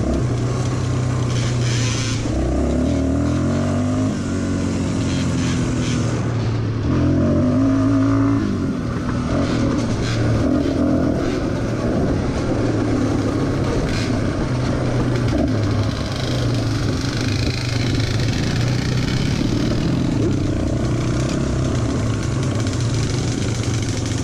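ATV engine running while under way on a dirt trail, its pitch rising and falling with the throttle over a steady rush of noise.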